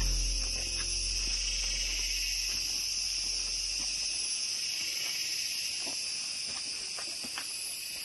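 Steady chorus of rainforest insects, a dense high-pitched buzz that holds without a break.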